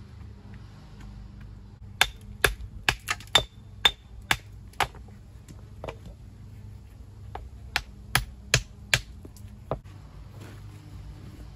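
A hammer striking stone in irregular runs of sharp, ringing cracks: about eight blows starting some two seconds in, a short pause, then about six more.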